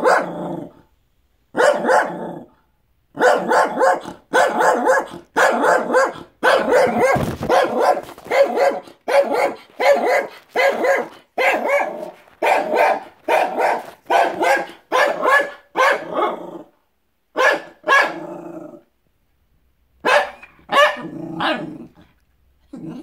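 Small dog barking repeatedly at dogs outside the window, in quick runs of about two barks a second broken by a few short pauses.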